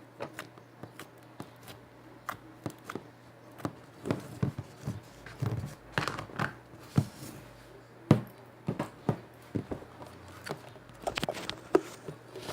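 Slime being squished and pressed, making irregular sticky clicks and small wet pops, a few louder than the rest.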